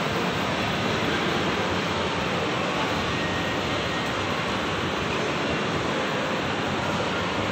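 Steady, even rushing noise of a large indoor shopping-mall atrium, with no distinct events standing out.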